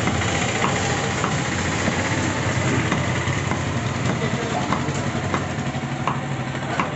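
A butcher's cleaver chopping goat meat into cubes on a wooden log block, giving short, sharp knocks about every half second to second. Under the chops runs a steady hum from an idling engine.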